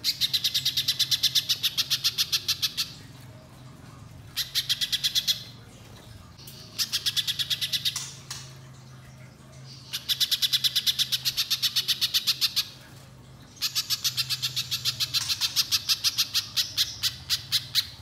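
Little spiderhunter (pijantung pisang) singing: five fast runs of sharp, evenly repeated notes, about nine a second, each run lasting from one to four seconds, with short pauses between.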